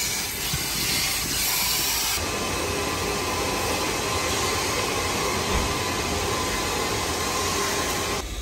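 A car-wash vacuum hose hisses as it sucks at a car's interior. About two seconds in it gives way to the steady mechanical rumble and hiss of a car-mat cleaning machine working on a floor mat.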